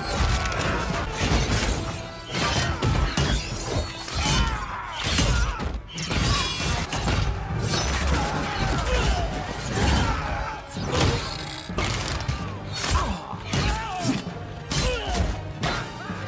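Film battle sound: music under a rapid run of sharp impacts, weapon clashes and shattering crashes.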